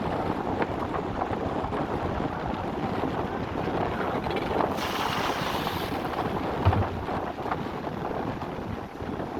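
Wind buffeting the microphone aboard a fishing boat at sea, with a steady rush of wind and water and one short knock about two-thirds of the way through.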